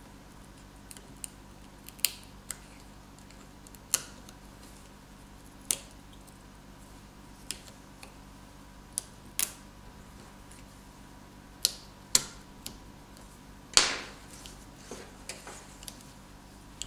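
Scattered sharp clicks and taps, about a dozen, from an opened smartphone and a small hand tool being handled and set against a wooden tabletop, over a faint steady low hum.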